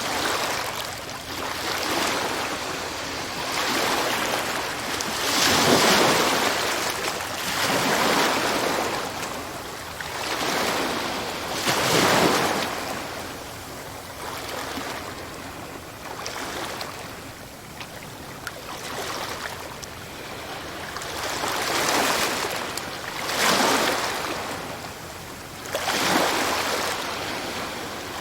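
Sea waves breaking and washing ashore in repeated surges that swell and ebb every two to three seconds. The largest breakers come about six and twelve seconds in, and again about twenty-three seconds in.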